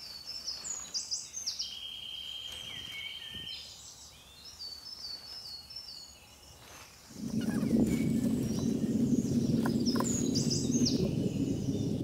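Small birds singing outdoors: repeated short chirping notes and a sustained trill. About seven seconds in, a louder steady low hum starts abruptly and continues under the birds.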